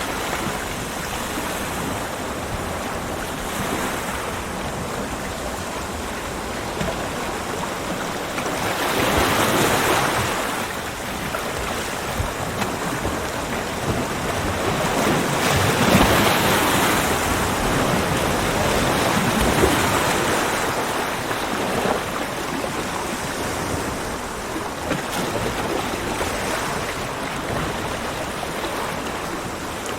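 Ocean waves breaking on a beach, a continuous wash of surf that swells up twice, about a third of the way in and again around the middle.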